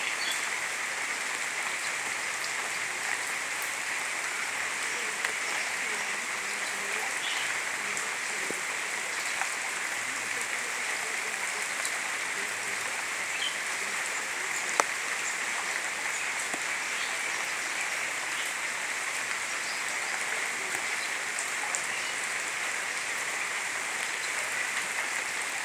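Steady rainfall, an even hiss of many drops, with an occasional louder drip or tap and one sharp tap about fifteen seconds in.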